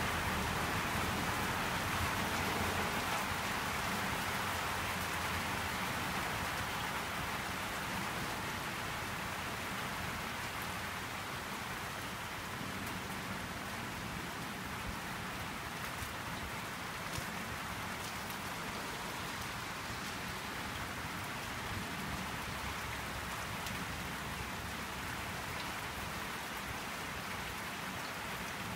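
Steady rain falling on surfaces, easing slightly over the first ten seconds, with a few sharper drips.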